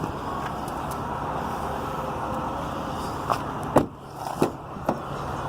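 A few sharp clicks and knocks over a steady outdoor hum, the loudest a little before four seconds in, from a vehicle door being unlatched and handled.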